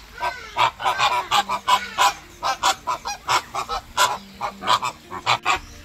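A flock of flamingos honking, short overlapping calls coming several times a second.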